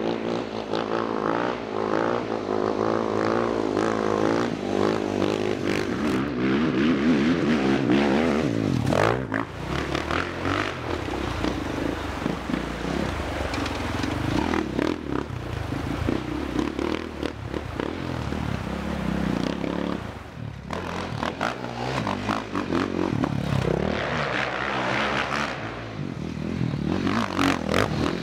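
Dirt bike engine revving up and down as it is ridden hard, its pitch rising and falling with the throttle.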